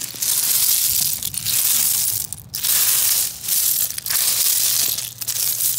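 A hand raking and sifting through beach pebbles and broken shells: stones and shell fragments crunching and clattering against each other in several bursts with short pauses.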